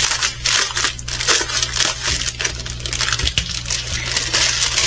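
Small plastic bags of diamond-painting drills being handled and sorted, the plastic crinkling with a dense run of short crackles.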